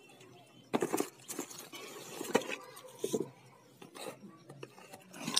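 Unlit firecracker packs and cardboard boxes being handled and set down on a concrete floor: irregular knocks, clatter and rustling.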